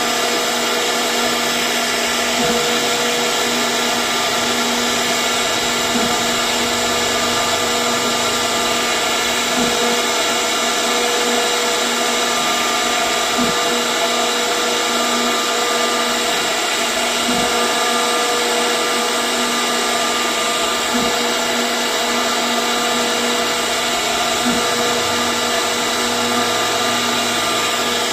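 CNC router spindle running steadily while carving wood, a constant whine over a steady hiss.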